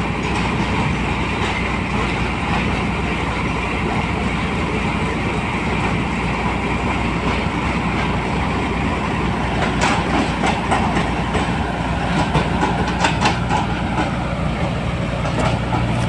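A combine harvester's diesel engine and threshing machinery running steadily with a constant low drone. A diesel tractor pulling a trailer comes up close alongside, and sharp rattling clicks set in from about ten seconds in.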